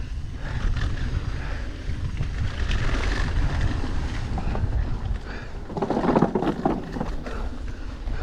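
Mountain bike riding fast down a dry dirt trail: wind rumbling on the camera microphone over the rush of knobby tyres on loose dirt, with scattered clicks and rattles from bumps. About six seconds in there is a louder, rougher burst of tyre and ground noise lasting about a second.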